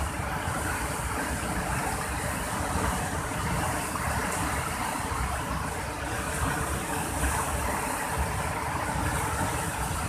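River in flash flood pouring over a weir: a steady, unbroken rush of turbulent water.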